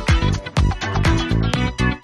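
Background music: an upbeat electronic dance track with a steady kick-drum beat about twice a second.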